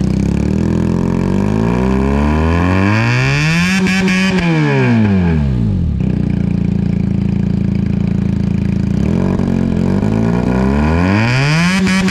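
Benelli TNT 300's parallel-twin engine running through an aftermarket Ixil exhaust, revved twice from idle. The pitch climbs over a couple of seconds and falls back, holds at idle for a few seconds, then climbs again near the end.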